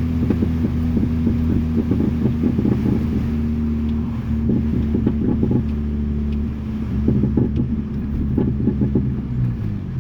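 Straight-piped Mini Cooper S exhaust running with a steady low note, broken by frequent irregular crackles and pops.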